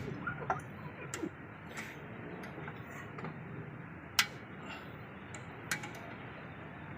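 Sparse, separate sharp metallic clicks and taps from hand tools and clutch parts being handled during clutch installation, over a low steady background hiss.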